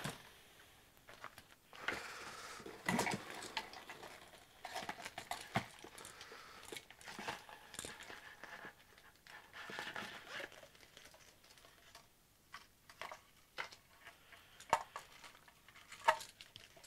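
Rustling of a soft pouch and light, scattered clicks and knocks as plastic logic-analyser probe pods and their ribbon cables and leads are handled and pulled out of it.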